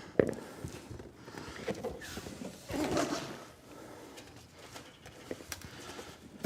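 Hands handling computer parts: a sharp click just after the start, then intermittent rustling and scraping as the motherboard is picked up and moved.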